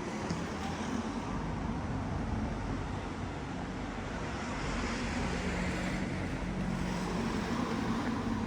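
City street traffic: a steady rumble of car engines and tyres, with a vehicle passing and swelling a little more than halfway through.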